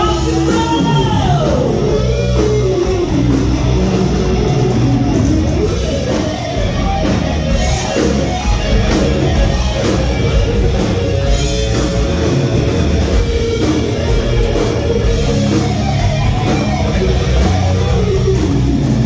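Live heavy metal band playing loud, with electric guitar to the fore over bass and drums, and sliding, bending notes near the start.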